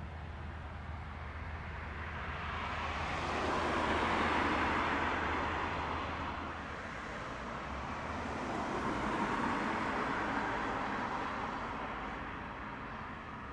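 Road traffic passing: a rushing noise of vehicles going by that swells and fades twice, peaking about four seconds in and again near ten seconds, with no siren.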